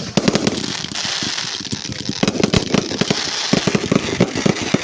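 Aerial fireworks going off in rapid succession: many sharp cracks and bangs over a steady crackling hiss.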